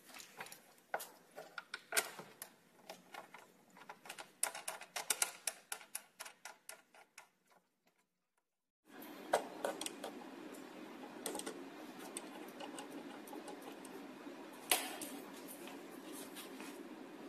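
Clicks and knocks of a plastic toddler-trike seat being fitted onto its metal seat post and its clamp knob worked, with a quick run of ticks a few seconds in. After a brief dead gap about halfway, a steady low hum with scattered clicks and one sharp click near the end.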